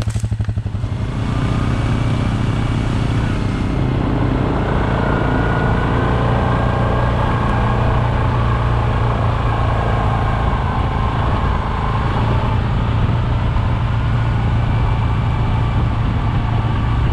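ATV (quad) engine running steadily as the quad rides along, heard from the vehicle the camera rides on.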